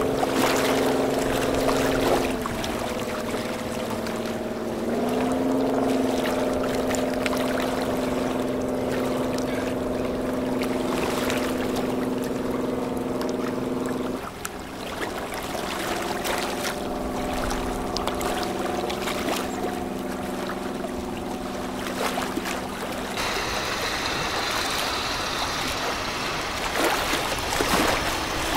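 Boat diesel engines running with a steady, several-toned hum over the wash of river water; the pitch of the hum shifts a few times, and it fades into plain water and hiss near the end.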